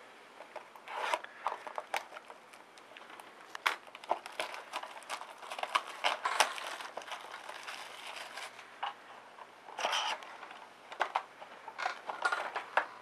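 A trading-card pack being torn open and handled: the wrapper tears and crinkles, and the cards scrape and click. The sound comes in uneven bursts of rustling.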